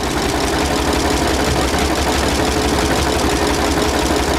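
An engine idling steadily, with a fast even pulse and a steady hum over it.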